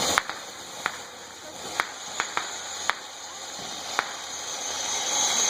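Consumer fireworks going off in sharp pops at irregular intervals, about eight in a few seconds, over a steady high hiss that grows louder towards the end.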